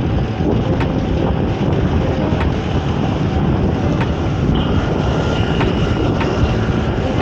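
Wind rushing over the microphone of a moving fixed-gear bike's POV camera, mixed with road and traffic noise. There are a few faint clicks and a faint high whine for a second or two past the middle.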